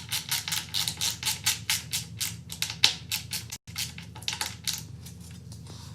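Background music with a fast, steady percussive beat, about five hits a second, broken off briefly partway through.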